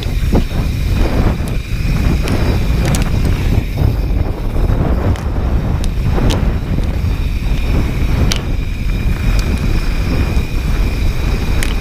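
Wind buffeting the camera microphone over the rumble of mountain bike tyres rolling fast on a dusty, rocky trail, with a few sharp knocks and rattles as the bike goes over stones.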